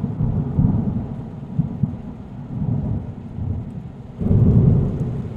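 Rolling thunder, a deep irregular rumble that dies down and swells again about four seconds in.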